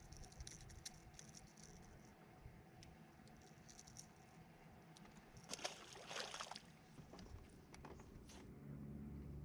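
Near silence, with faint scattered clicks and a brief rustling burst of noise about five and a half seconds in.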